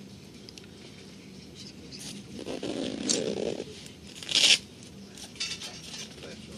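Cabin noise of a moving Eurocity passenger train: a steady low hum with light rattles and crackles, a brief swell of rumble about three seconds in, and a short loud rustle about four and a half seconds in.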